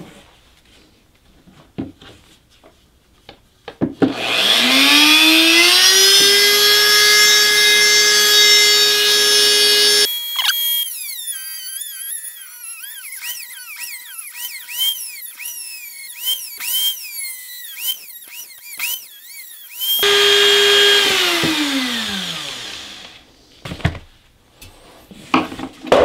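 Flex-shaft Dremel rotary tool with a fibre-reinforced cutting wheel spinning up about four seconds in and running at a steady high whine while cutting into a stainless steel utensil holder. From about ten to twenty seconds, the cutting is heard sped up as a high, warbling sound. Then the steady whine returns and winds down near the end, followed by a few clicks of handling.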